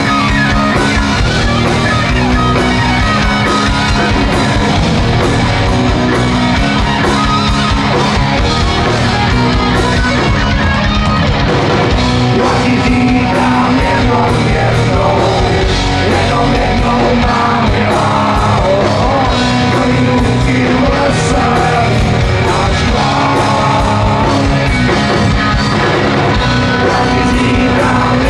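Live rock band playing loud: electric guitars, drum kit and singing.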